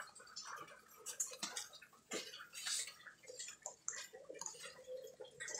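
Faint, irregular clicks and light taps from a whole roast pig (lechon) being cut up by hand.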